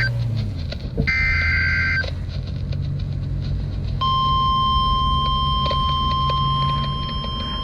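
Emergency Alert System SAME header data bursts, a one-second warbling screech of two rapidly alternating tones, heard about a second in and signalling the start of a weather alert. At about four seconds the NOAA Weather Radio 1050 Hz warning alarm tone begins, a single steady beep-like tone that holds to the end.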